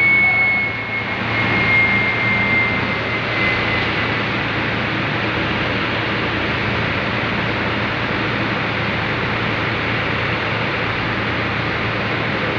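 Steady roar of engines and machinery in a ferry's enclosed vehicle deck, with a low hum underneath. A thin high whine fades out over the first few seconds.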